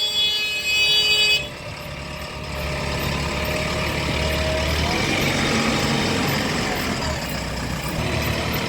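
A vehicle horn blaring steadily and cutting off about a second and a half in, then a heavy diesel engine running, its pitch rising briefly around the middle.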